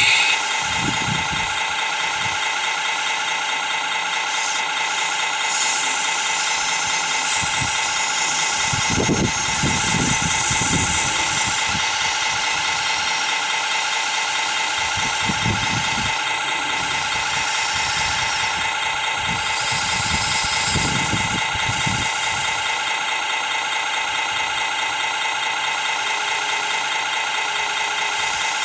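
Radio-controlled scale hydraulic excavator digging mud: a steady, high mechanical whine from its pump and motors, with lower rumbles coming and going as the arm moves.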